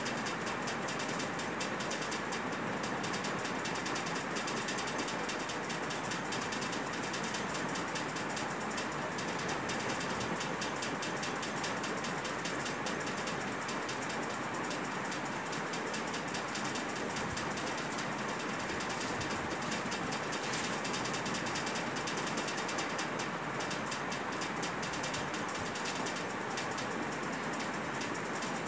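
A steady, rapid mechanical clicking or rattle from a small machine.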